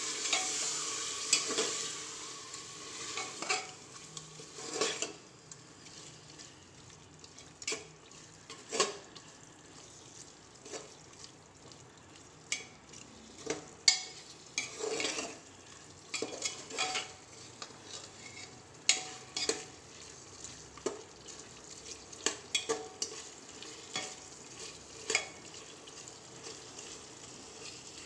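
Metal spatula scraping and clacking against the sides and base of an aluminium pressure cooker as meat is stirred, over a frying sizzle. The sizzle is loudest in the first couple of seconds, then settles to a faint hiss under irregular sharp scrapes.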